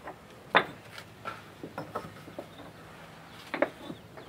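Belgard Dublin Cobble concrete pavers knocking against one another as they are set by hand: a sharp clack about half a second in, a quick double clack near the end, and lighter taps between.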